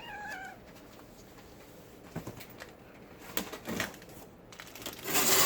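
Cardboard box being handled and opened: a few scattered knocks and rustles, then a loud tearing rasp near the end. A short high-pitched call is heard at the very start.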